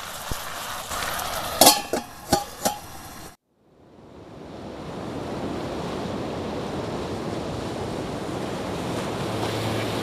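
A steady rushing noise with a few sharp clicks in the first three seconds. It breaks off to silence about three seconds in, then fades back in and runs on evenly.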